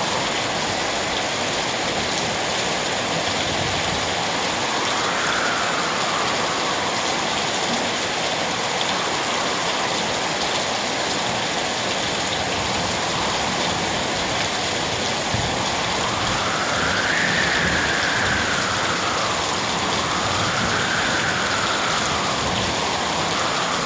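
Steady rain falling in an even hiss, with a whooshing tone that slowly rises and falls every few seconds.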